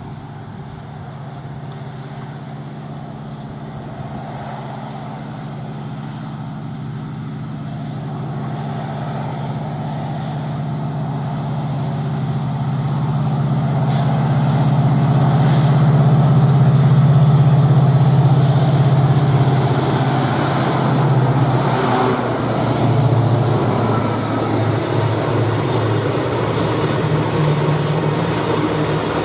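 Twin WDG4D diesel locomotives, each with an EMD 710 two-stroke V16 engine, hauling a loaded coal freight train. The engines' steady low drone grows louder as they approach under load and peaks as they pass, just past the middle. It then gives way to the rolling clatter of the loaded wagons' wheels over the rail.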